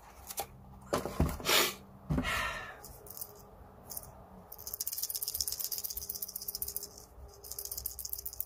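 The rattle chamber inside a carved timber crankbait body being shaken by hand: rapid fine clicking of the loose rattle, a long spell of about two and a half seconds past the middle and a shorter one near the end. A few handling knocks come before it.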